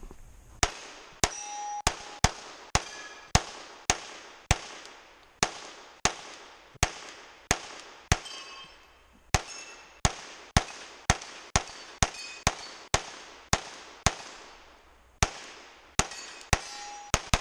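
Rapid semi-automatic pistol fire, about forty shots at two to three a second, with two short pauses of about a second around the middle and near the end. Many shots are followed by a brief clear ringing of steel targets being hit.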